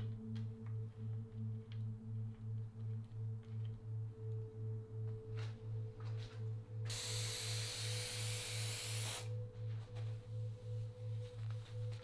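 A low droning tone pulsing about three times a second, with a fainter steady tone above it. About seven seconds in, an aerosol spray can hisses for about two seconds, cutting off sharply.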